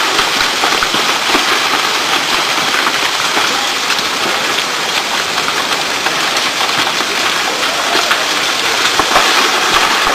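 A mudslide (debris flow) pouring down a rocky gully: a steady rushing of mud and water with scattered small clatters of stones.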